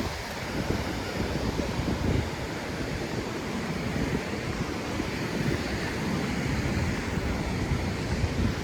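Sea surf washing onto a beach, with wind buffeting the microphone in uneven gusts.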